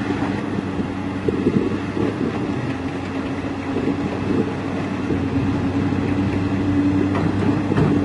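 Hyundai crawler excavator's diesel engine running steadily under hydraulic load as it digs into rocky soil, with a few brief knocks from the bucket and rocks.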